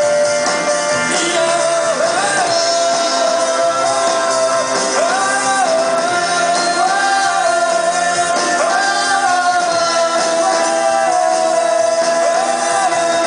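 Live rock band playing with electric guitars and drums. A lead melody line holds one note, stepping up and back down every second or two.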